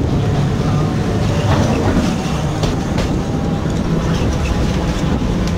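Vintage wooden tram car of the Sóller tramway running on its street track: a steady rumble of steel wheels on rails, with a few sharp clicks and clanks along the way.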